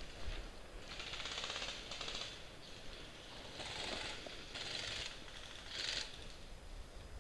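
Airsoft electric rifle firing about five short full-auto bursts, a rapid rattle of shots.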